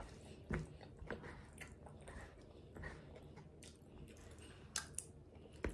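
Quiet close-up chewing of a mouthful of rice-bowl food, with scattered short clicks and scrapes of a fork scooping from a takeout bowl.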